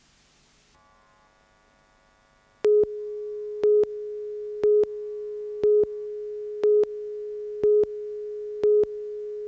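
Broadcast videotape countdown leader: after near silence, a steady single-pitch line-up tone starts a little under three seconds in, with a louder short beep once a second marking each number of the count.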